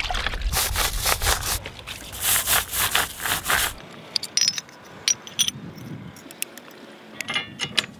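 Rusty anchor chain being worked by hand: a run of rough scraping strokes for the first few seconds, then quieter handling with scattered metallic clinks of the links.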